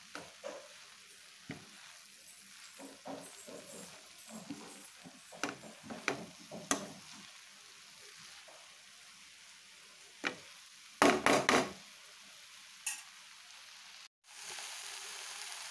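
Moringa leaves with onion and tomato sizzling in a pan while being stirred, with short scrapes and clinks against the pan. About eleven seconds in comes a short burst of loud clattering. After a brief dropout the sizzling carries on, louder and steadier.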